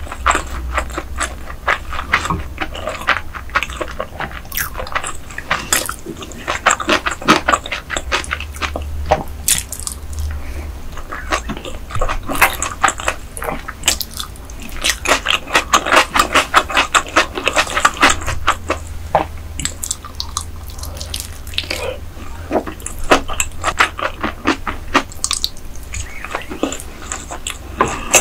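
Close-miked wet chewing and lip smacking: a dense run of small moist clicks that comes in clusters with short pauses between mouthfuls.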